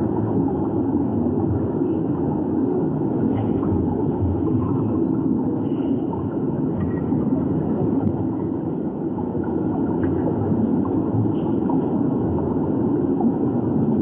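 Underwater ambience: a steady, muffled rumble of moving water picked up by a submerged camera.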